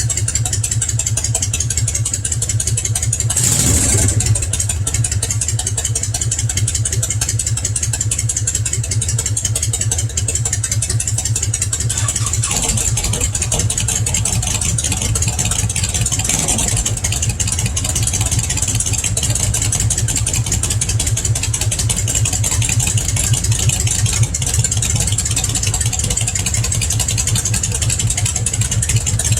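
Honda VTX1300 V-twin, started cold, idling through an aftermarket exhaust with an even, loping beat. It gets three short throttle blips: about three and a half seconds in, around twelve seconds and around sixteen seconds.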